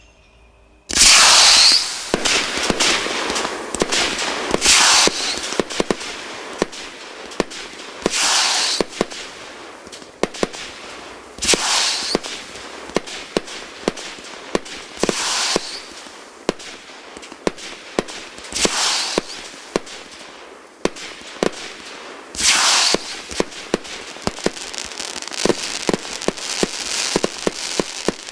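Fireworks display starting about a second in. Loud bursts come about every three and a half seconds, with rapid sharp cracks and crackling between them.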